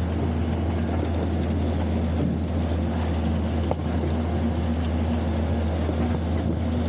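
Steady, unbroken drone of the opal agitator's engine running, turning the washing drum, with a single faint click in the middle.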